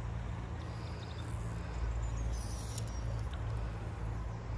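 Steady rush of river water around a wading angler, over a constant low rumble, with a couple of faint high bird chirps.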